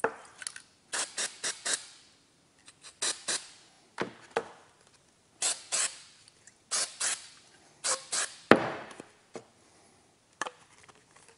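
Aerosol can of PVC spray cement sprayed in a series of short hissing bursts, in clusters of two to four, with a sharper, louder burst about eight and a half seconds in.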